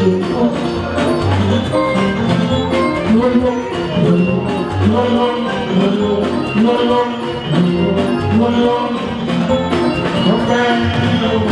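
Live fuji band music, loud and steady, with drums and percussion and a voice singing over it.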